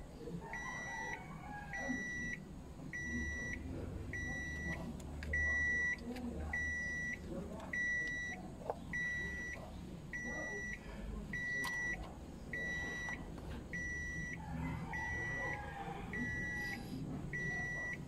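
An electronic beeper sounding short, evenly spaced beeps at one steady high pitch, a little under two a second, over a faint low rumble.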